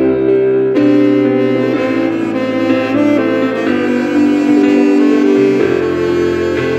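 Yamaha YTS-32 tenor saxophone playing a melody of held notes, each changing to the next every half second to a second.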